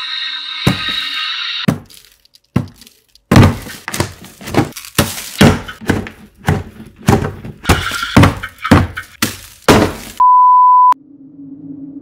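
Music that stops about two seconds in, then a quick run of about a dozen hard thuds and knocks. Then a short, steady high beep like a censor bleep, and a low steady drone near the end.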